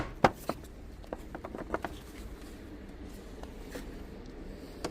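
A few sharp clicks and knocks, the loudest right at the start, then scattered light taps over a low steady rumble.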